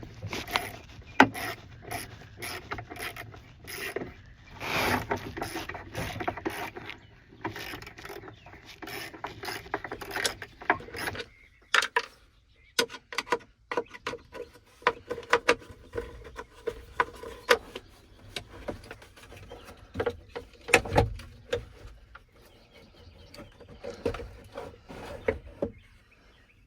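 Irregular metallic clicks, knocks and rubbing of mechanical hand work on a John Deere 8420 tractor's shifter, thinning out partway through.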